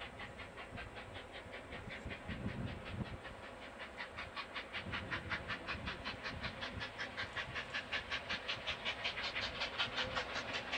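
Steam locomotive approaching at speed, its exhaust beating rapidly and evenly over a steady hiss, growing louder as it nears.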